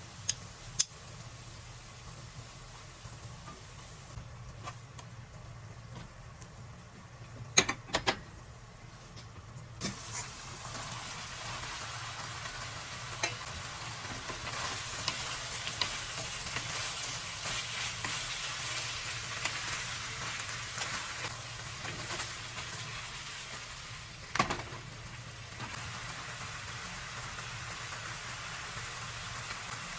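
Food sizzling in a frying pan while being stirred, with a few sharp knocks of the utensil on the pan. The sizzle grows louder about ten seconds in, is loudest through the middle and eases off before the end.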